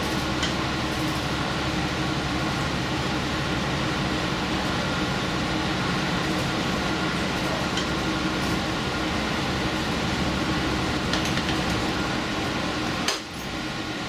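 Diesel limited express train running steadily along the line, a continuous rumble with a steady engine and drive hum and a few light clicks from the wheels and car body. About thirteen seconds in there is a single sharp knock, after which the running noise drops a little.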